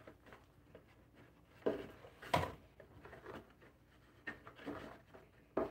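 Faint rustling and handling of a new headset microphone's packaging as it is unwrapped by hand, with a few short knocks, the loudest about two and a half seconds in and another near the end.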